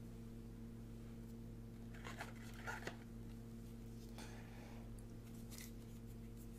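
Faint rustling and light scraping of trading cards and their plastic being handled, in a few short rustles about two, three, four and five and a half seconds in, over a steady low electrical hum.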